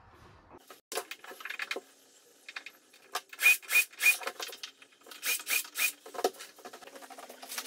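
Work at a wooden door frame's hinge: a run of clicks and knocks, with two sets of three sharp strikes about a third of a second apart.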